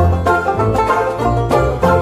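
Background music led by quick plucked string notes over a steady bass line.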